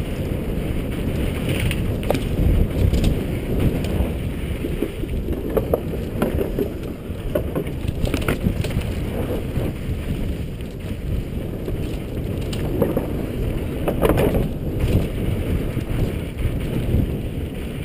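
Wind buffeting a helmet-mounted camera's microphone while a mountain bike descends a loose dirt trail at speed. The tyres rumble over the ground, and the bike rattles and knocks over bumps, most sharply about fourteen seconds in.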